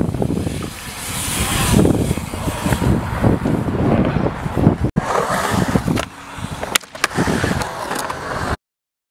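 BMX tyres and skateboard wheels rolling on a concrete skatepark bowl, a loud steady rumble. After a break about five seconds in, a few sharp clacks of the skateboard on the concrete come around seven seconds in.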